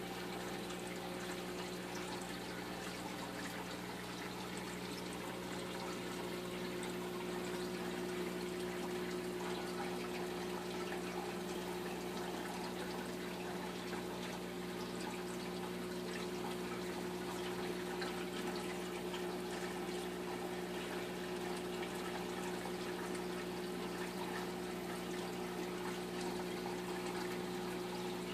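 Water trickling and splashing steadily as it circulates through a reef aquarium, with a steady low hum underneath.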